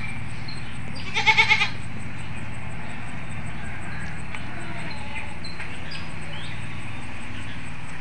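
A goat bleating once, a short quavering call about a second in, over a steady low background hum.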